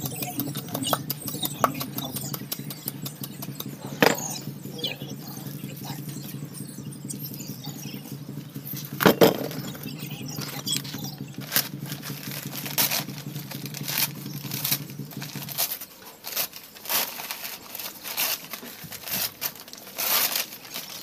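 Dry brown paper bag being torn and crumpled into a compost bucket: a run of crackling rustles from about halfway through. Before that, two sharp knocks, and under it a steady low machine hum that stops about three-quarters of the way through.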